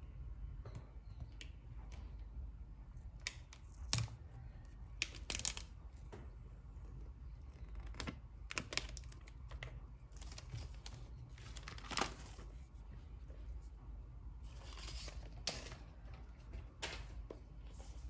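Plastic shrink-wrap being torn off a cardboard iPhone box as it is handled and turned over on a desk: scattered sharp crinkles and taps, with a longer rustle about three-quarters of the way in.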